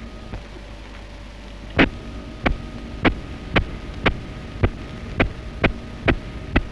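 Sharp knocks of a hammer or tool striking stone, about two a second, starting about two seconds in, over the steady hum of an old film soundtrack.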